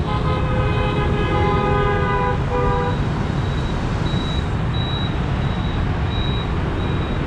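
A vehicle horn sounds steadily for about three seconds, with a brief break near the end, over the steady rumble of street traffic made up largely of motor scooters.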